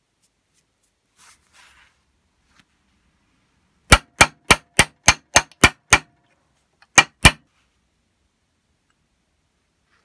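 Hammer tapping a pin punch against a small steel part held in a vise, metal on metal: eight quick sharp strikes at about three a second, then a short pause and two more.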